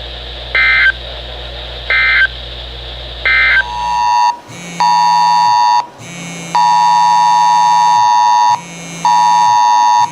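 Three short bursts of SAME digital data from a NOAA weather radio, the end-of-message code closing the broadcast warning, about a second and a half apart. From about four seconds in, a smartphone's Wireless Emergency Alert attention tone starts: a loud two-tone beep in long and short pulses, with the phone buzzing on vibrate.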